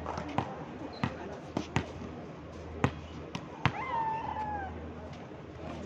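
Volleyball being struck and bouncing on a hard outdoor court: about six sharp slaps scattered over a few seconds, the loudest a little before 3 s and just before 4 s. Right after the last slap comes a short high cry that falls in pitch.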